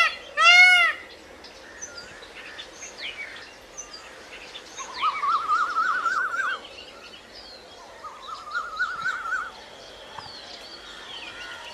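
Indian peacock giving one loud, arching wail near the start, the last of a series of calls. Then other birds chirp faintly, with two rapid, rattling trills, one about halfway through and another a few seconds later.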